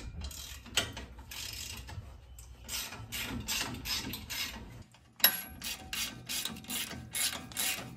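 Ratchet wrench with an 18 mm socket clicking in quick strokes, loosening the lower shock-mount bolt. The clicking breaks off briefly about five seconds in, then goes on at about three clicks a second.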